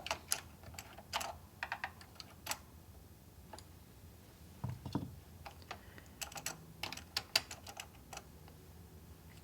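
Scattered sharp plastic clicks and clacks from a Dell AT-101W mechanical keyboard with Alps switches being worked on by hand as its keycaps and stabilizer parts are pried and pulled, in two bunches, with a dull knock about five seconds in.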